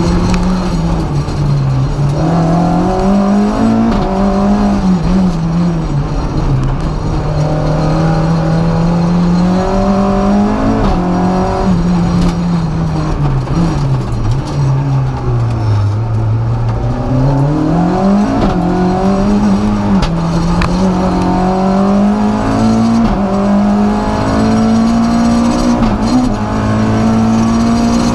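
F2000 Renault Clio Sport rally car's engine heard from inside the cabin at stage pace, the revs climbing and dropping over and over through gear changes and lifts. About halfway the revs sink low, then pull back up hard.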